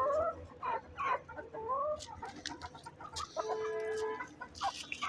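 Domestic hen clucking: a run of short calls that bend up and down in pitch, then a longer, steadier call about three and a half seconds in.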